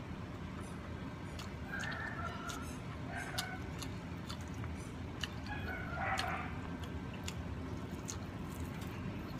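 Chickens clucking in short calls several times, the loudest about six seconds in, with faint clicks of eating and handling food throughout.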